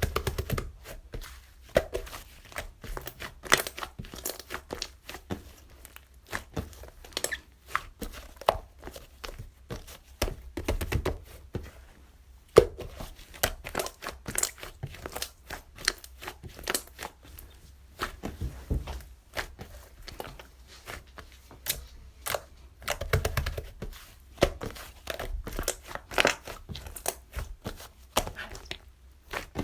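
Close, irregular crinkling, crackling and tearing sounds of crinkly material being handled, with louder bursts now and then.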